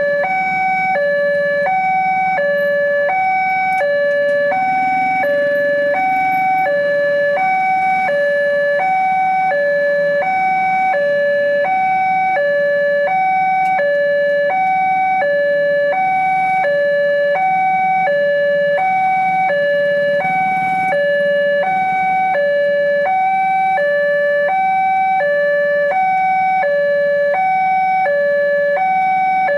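Railway level-crossing electronic warning alarm sounding steadily, alternating between two notes, about one high-low pair a second, while the barriers are down for an approaching train.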